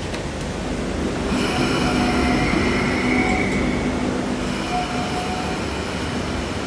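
Sydney Trains K set electric train carriage running with a steady rumble, joined about a second in by high-pitched steel wheel squeal that lasts several seconds and eases near the end.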